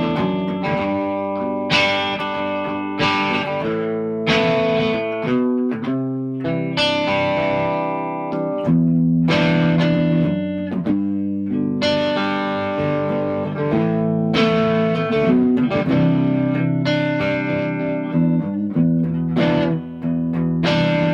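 Gibson Custom SG electric guitar from 1989, not yet set up, playing a run of chords. Each chord is struck and left to ring, a new one about every one to two seconds.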